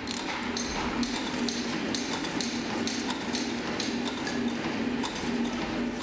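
Railway engine-house workshop noise: irregular sharp metallic taps and clinks, about two or three a second, over a steady machine hum.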